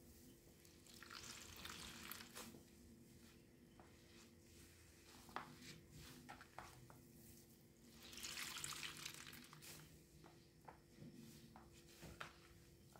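A wet foam sponge being squeezed and pressed in a plastic basin of soapy rinse water, water squishing out of it and running back into the basin. Two longer runs of draining water come about a second in and again about eight seconds in, with small wet squelches between them. The whole is quiet.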